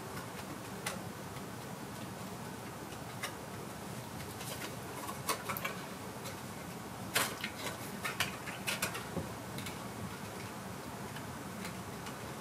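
Light clicks and taps of playing cards being handled and set onto a card pyramid: a few scattered ones, then a quick run of them from about five to nine seconds in, over a steady low room hum.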